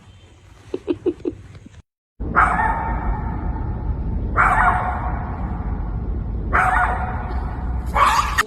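A dog barking: a few quick yips about a second in, then, after a short break, several louder barks about two seconds apart over a steady low rumble.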